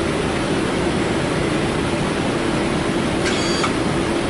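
Steady rushing noise of airflow and ventilation on a Boeing 777 flight deck in flight, with a low steady hum beneath it. A brief high tone sounds for about half a second about three seconds in.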